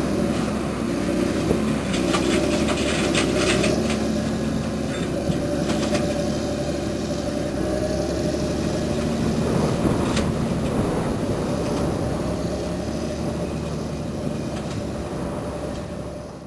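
Diesel engine of a TerraGator 8133 self-propelled slurry applicator running steadily under load, pulling a 5.8 m slurry injector through grain stubble. A few brief crackles come through about two to four seconds in and again near ten seconds.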